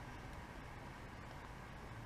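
Faint, steady background noise with a low hum and no distinct event.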